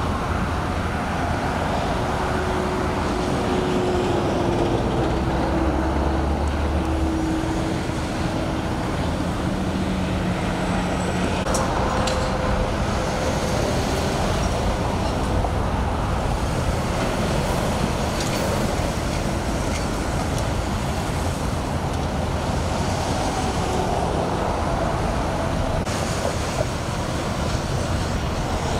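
Steady freeway traffic passing at speed, a continuous rush of tyres and engines from cars and trucks going by in the open lanes.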